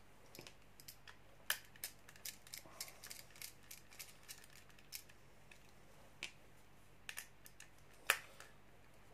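Scattered small clicks and ticks of a precision screwdriver and small plastic and metal parts being handled while tiny screws on a small plastic device case are turned. They come irregularly, the sharpest click about eight seconds in.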